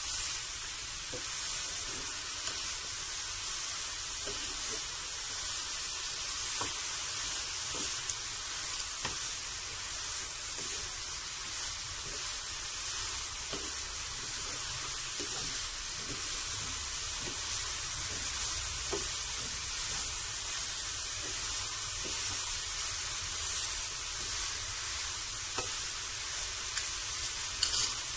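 Wooden spatula stirring and scraping grated coconut and pandan leaves in a pan over a steady hiss, with soft irregular scrapes and a few louder clicks near the end.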